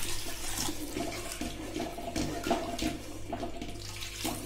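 Water poured in a steady stream from a steel cup into a pan of thick fried masala paste, splashing as it thins the paste into gravy.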